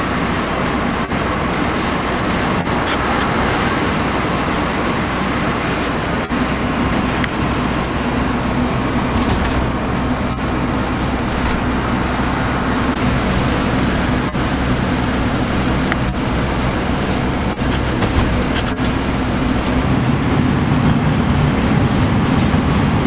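Steady engine and tyre noise inside a motorhome driving at motorway speed, with scattered light clicks and rattles from the interior.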